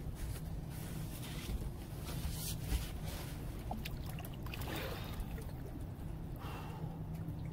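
A big blue catfish lowered over the side of a boat and let go, with short splashes and sloshing water as it swims off, over a steady low hum.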